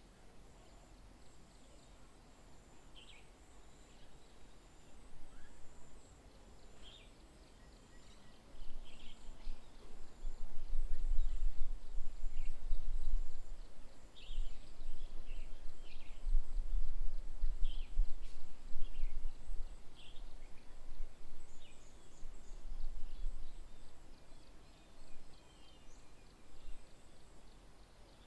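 Outdoor ambience of short bird chirps scattered throughout, under a faint steady high whine. From about eight seconds in, a loud, gusting low rumble of wind buffeting the microphone takes over, then eases off in the last few seconds.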